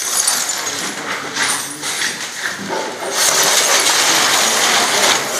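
Broken glass and plaster rubble clinking and crunching as it is walked over and cleared from a floor, then a longer, steady scraping about halfway through as debris is pushed along the floor.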